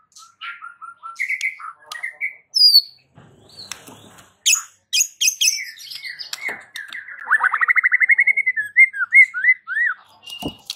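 White-rumped shama singing a varied song: short repeated whistles, high sweeping notes, then a fast rattling trill that rises in pitch, ending in a run of loud slurred whistles. A short thump comes just before the end.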